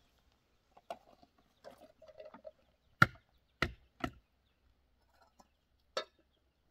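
A few sharp knocks or blows: a faint one near the start, three loud ones in quick succession about three seconds in, and one more about two seconds later.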